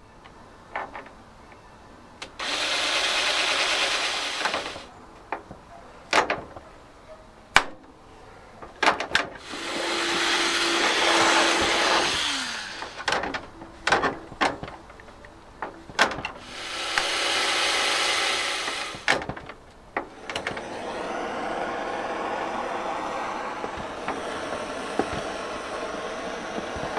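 A heat tool blowing a steady rush of hot air or flame, switched on in several bursts of a few seconds each, with a longer run near the end, to soften plastic bumper pieces for moulding. Sharp clicks and knocks of plastic being handled come between the bursts.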